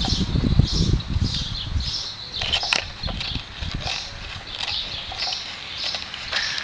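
High-pitched chirping, short calls repeating two or three times a second, with a low rumble in the first two seconds and a few sharp clicks around the middle.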